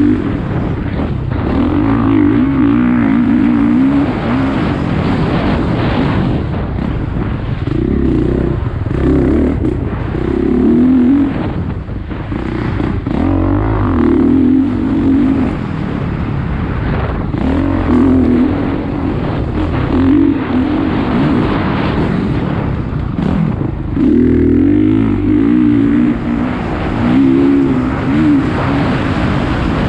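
A vehicle's engine at speed lapping a track, its note rising and dropping again every couple of seconds as it accelerates and backs off, over a steady rush of wind and road noise.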